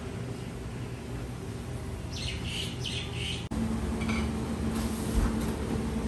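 A bird calls several times in quick succession over about a second, over a steady background. Near the middle the sound changes abruptly to a steady low hum with a few light clicks.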